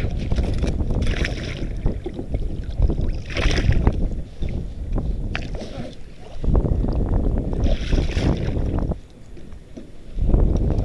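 Wind buffeting the camera's microphone on a kayak at sea, a dense low rumble that eases off about nine seconds in and then comes back. Three short rushes of hiss and an odd click from handling on the boat sit on top.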